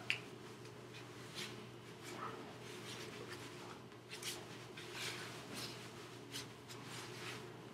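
Clothing and hands rustling with quick hand gestures: the jacket sleeves and hands brushing in short, irregular scratchy swishes about a second apart, over a steady low electrical hum.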